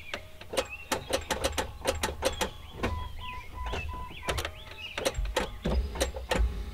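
Jeep Cherokee XJ starter clicking sharply and irregularly, two or three clicks a second, without cranking the engine over, even with a jump pack connected: the starter fails to turn the engine. A short electronic beeping comes in dashes partway through and again near the end.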